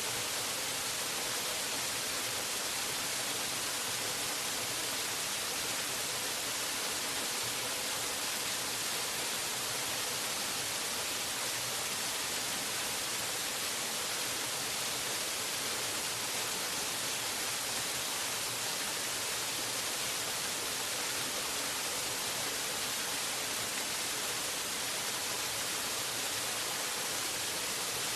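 Waterfall: a steady, unbroken rush of falling water, mostly hiss, with no change in level.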